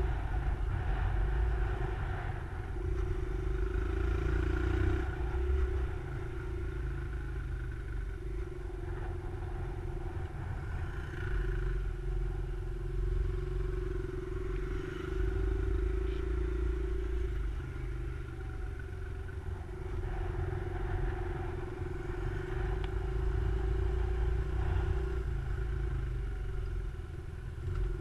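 Small motorcycle (pit bike) engine running under the rider, its loudness swelling and dipping every few seconds as it is ridden through tight corners, over a heavy low rumble.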